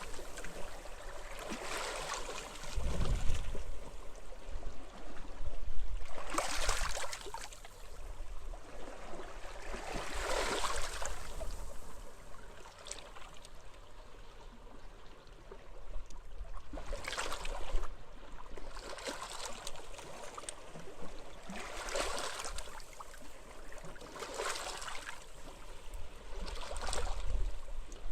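Small sea waves washing onto a beach, each one a rush of hiss that swells and fades every few seconds, over a low rumble of wind that gusts about three seconds in and again near the end.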